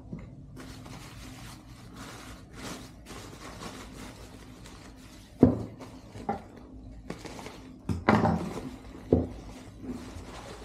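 Bubble wrap and a cardboard box rustling and crinkling as a bubble-wrapped radio is lifted out and handled, with several dull thumps as it is set on the desk. The loudest thump comes about five seconds in, with a cluster around eight seconds.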